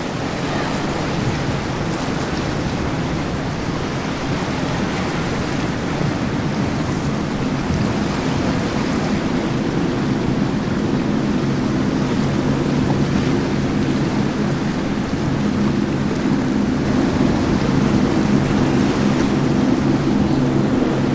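Intrepid powerboat running fast past, its hull rushing through the water with a steady spray noise. From about eight seconds in, the hum of its engines rises under the spray, loudest near the end.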